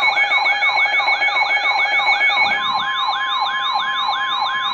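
Electronic siren wailing in quick falling sweeps, about three a second, over a steady alert tone; about halfway through, the steady tone changes to a single steady beep like the NOAA Weather Radio warning alarm tone, while the siren sweeps go on.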